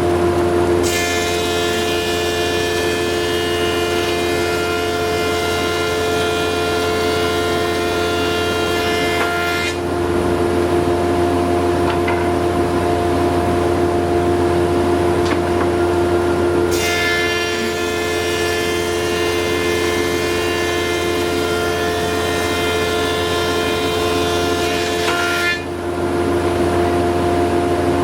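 Thickness planer running steadily, cutting a bevel into two lengths of timber one after the other: each pass adds a high, whining cutting sound for about nine seconds over the motor's hum, with the planer idling for several seconds between the two pieces.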